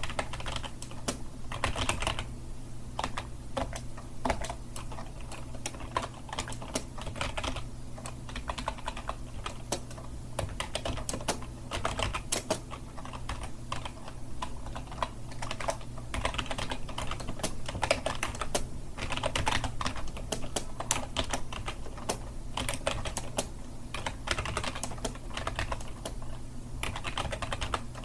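Continuous typing on a computer keyboard: fast, uneven keystroke clicks with short bursts of quicker strokes, over a steady low hum.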